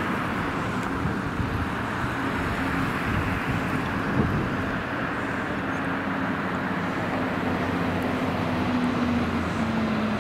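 Chevrolet medium-duty fire truck approaching along a street with its engine running as a steady drone over the hiss of road traffic. The engine tone drops in pitch near the end.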